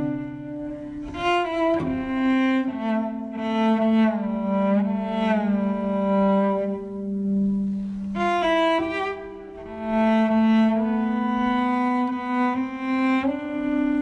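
Slow instrumental music of long held notes, each phrase swelling and then fading, with a low sustained line under higher notes.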